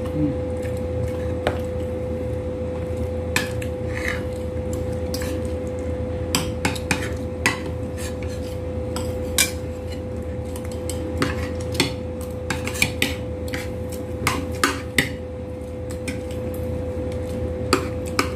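Metal utensil clinking against cookware in scattered, irregular clinks that come more often in the second half. Under them runs a steady low hum with a constant tone.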